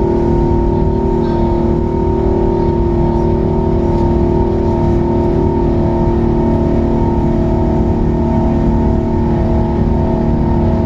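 Airbus A380's four jet engines running at takeoff power: a loud, even roar with several steady humming tones held over it.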